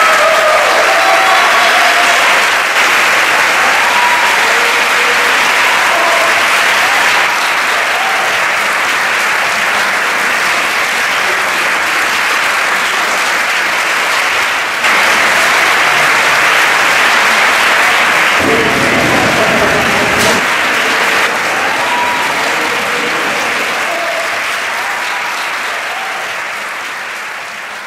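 A large audience applauding steadily, with a few voices calling out over the clapping. The applause fades out near the end.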